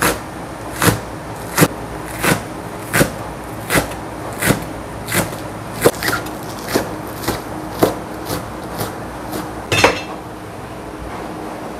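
Cleaver chopping green onions on a wooden cutting board: steady knocks of the blade on the board, about one and a half a second, with one louder knock about ten seconds in, after which the chopping stops.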